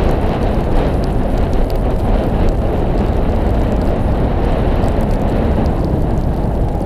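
Loud, steady wind rushing over the microphone of a camera moving at downhill speed, over the hiss and scrape of sliding on packed snow.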